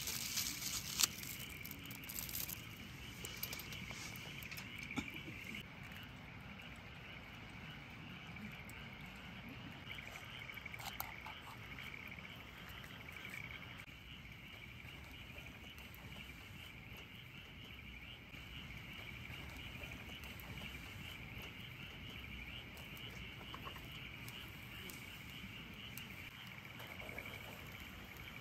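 A steady night chorus of calling frogs or insects, a high, finely pulsing trill. A few sharp clicks sound in the first few seconds, the loudest about a second in.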